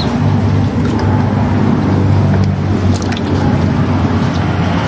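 A steady low engine hum, with wet squelching and light splashing as slippery eels are handled over a basin of water.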